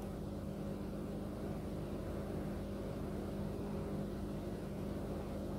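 Steady low machine hum with a constant low tone, the background running noise of an aquarium hall's pumps, filtration and ventilation.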